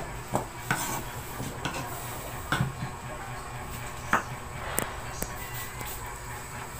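Scattered light clinks and knocks of kitchen utensils and dishes during vegetable preparation, each one short and separate, over a low steady hum.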